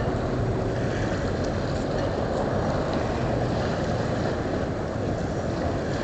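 Wind rumbling steadily on the microphone, with the wash of small waves on choppy open water.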